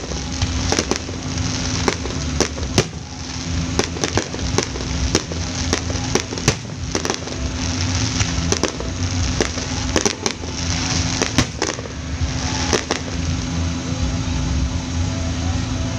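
Fireworks display: aerial shells bursting in a rapid, irregular series of sharp bangs over a continuous crackling hiss. The bangs thin out after about thirteen seconds.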